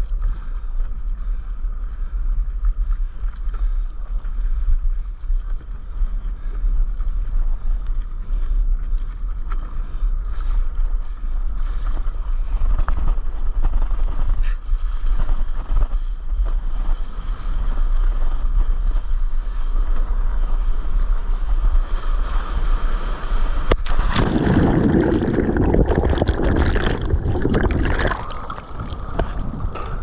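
Wind rumbling on an action camera's microphone just above the sea, with water splashing against a stand-up paddleboard as it is paddled. About 24 seconds in, a breaking wave's whitewater rushes loudly around the board for a few seconds.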